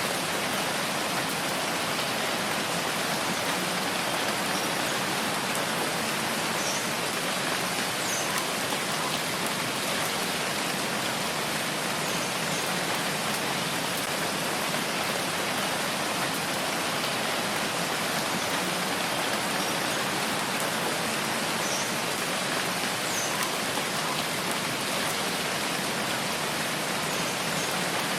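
Steady rain falling, a dense even hiss of drops with no change in strength.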